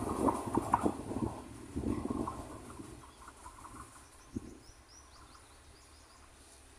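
Green Line Express passenger coaches running away after passing at speed: their wheel clatter over the rail joints fades out over the first three seconds. Faint bird chirps follow about four seconds in.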